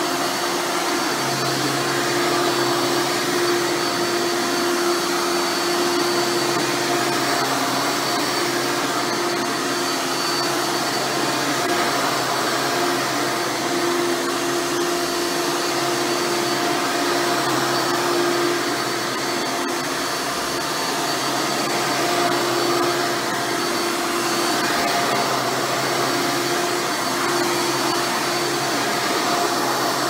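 Hoover Dirt Finder Legacy upright vacuum running steadily on carpet: a constant motor whine over airflow rush, varying only slightly as it is pushed back and forth.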